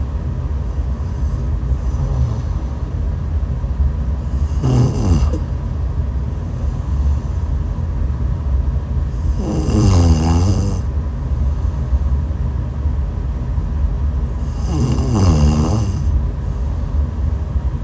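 A woman snoring, three snores about five seconds apart, each about a second long, over a steady low rumble.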